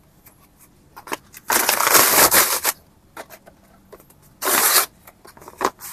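Cardboard and paper being torn and crumpled by hand, in two loud rustling bursts: one a little over a second long, then a shorter one about three seconds later. Faint ticks and clicks lie between them.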